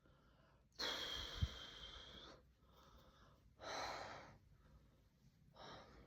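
A person breathing loudly and hoarsely close to the microphone: three breaths, a long one about a second in, another near the middle, and a shorter, fainter one near the end.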